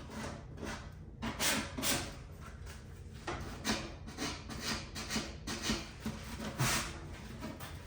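Short, repeated rubbing strokes against wood, like hand-sanding or scuffing a drawer part, coming irregularly at about two a second.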